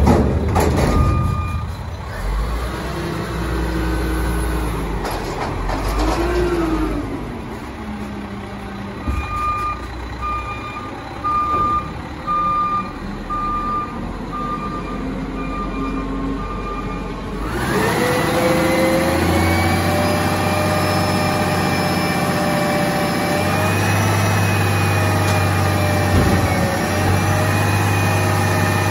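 Garbage truck engine running while its reversing alarm beeps about once a second. About two-thirds of the way in, the engine speeds up and a loud, steady mechanical whine sets in and holds, stepping slightly in pitch, as the truck works its hydraulics.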